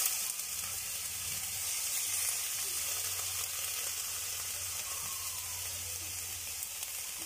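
Crabs sizzling in a hot wok as lemon soda is poured over them in a thin stream: a steady frying hiss, with a low hum underneath.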